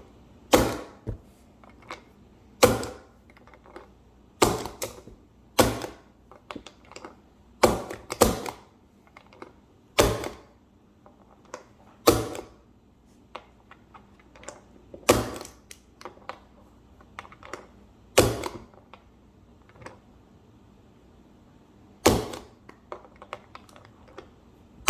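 Ludex plastic speed loader pressing 9mm cartridges one by one into a Glock magazine. Each press ends in a sharp click as the round is pushed down and seats, with one every one to three seconds.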